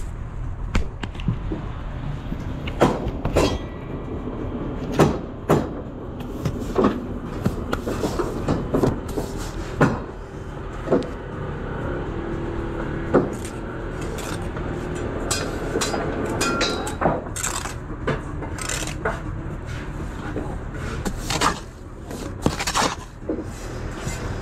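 Bricklaying work: a steel trowel scraping and tapping mortar and bricks, giving irregular sharp knocks and metallic clinks over a steady low rumble.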